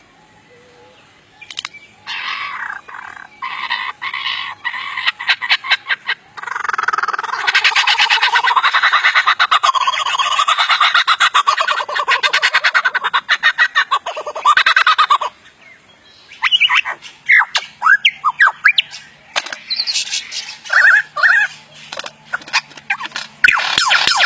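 Lyrebird calling in a run of mimicked sound effects: rapid clicks and rattles, then a long, dense, fast rattling stretch through the middle, then short whistled glides.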